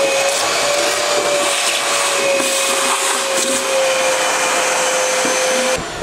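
TEXUM TVC 30 1800-watt wet and dry vacuum cleaner running with its hose in a bucket sucking up detergent water, its motor giving a steady whine over a rush of air. The sound stops suddenly near the end.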